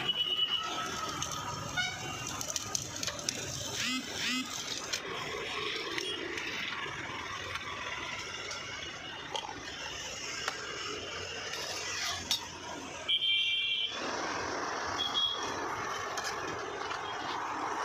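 Rigour electric sugarcane juicer running as cane stalks are fed into its rollers, with street traffic noise around it and a short horn toot about two-thirds of the way in.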